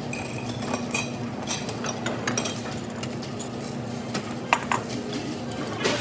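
Cutlery and dishes clinking at a restaurant table: a scatter of light clicks and chinks, with one sharper clink about four and a half seconds in, over a low steady hum.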